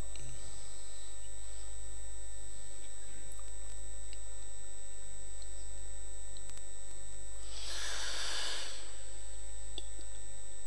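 Steady low electrical mains hum from a microphone and amplifier sound system, with a thin steady high whine above it. A brief faint hiss comes near the end.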